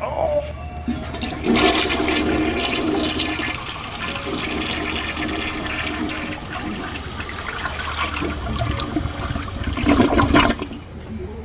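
Water rushing loudly for about nine seconds, rising to its loudest just before it cuts off suddenly near the end.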